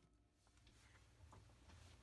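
Near silence: room tone, with a couple of faint ticks about a second in.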